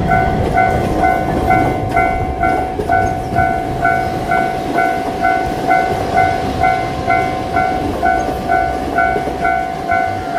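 Level-crossing warning bell ringing steadily, about two to three strikes a second, over the rumble of a diesel locomotive and freight wagons passing.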